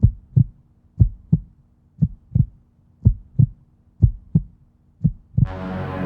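Heartbeat sound effect: low double thumps, lub-dub, about once a second, over a faint steady hum. About five and a half seconds in, a swell of music comes in.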